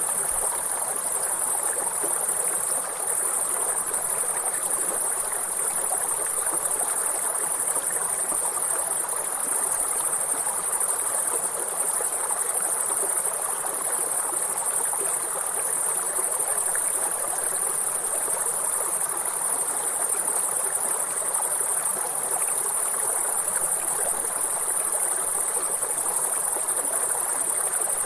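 River water flowing steadily, with a constant high-pitched chorus of insects over it.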